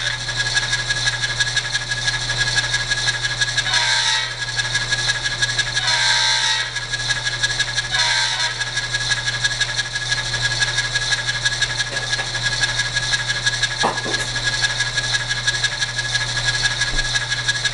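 Factory sound decoder in an N-scale Atlas ALCO S-2 model diesel switcher playing the locomotive's idling engine through its tiny speaker: a steady, buzzy chug. Three horn blasts come about four, six and eight seconds in, the middle one the longest.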